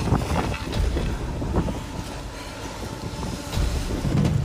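Wind buffeting the microphone over choppy sea water slapping against a concrete pier, with jacket fabric rustling against the camera and scattered short crackles.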